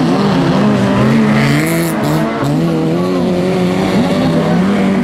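Several dirt-track race cars' engines revving and easing off through a bend, their notes overlapping and rising and falling with throttle and gear changes. There is a brief rush of noise about two seconds in.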